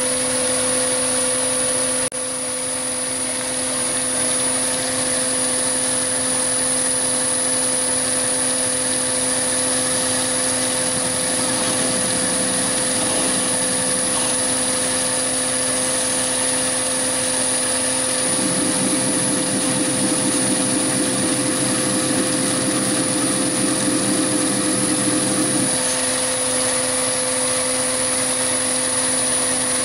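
Chinese 7x14 mini lathe running steadily at speed, its motor and gear train giving a steady hum with a high whine on top. For about seven seconds in the second half a rougher, fluttering buzz joins in.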